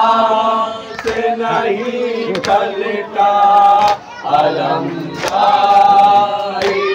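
Group of men chanting an Urdu noha through a microphone, a lead voice with others joining in on held, mournful notes. A few sharp slaps of hands on chests (matam) cut through the singing.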